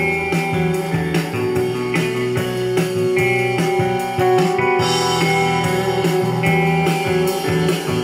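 Guitar music playing through a HiddenRadio 2 portable Bluetooth speaker, plucked notes over a steady bass line.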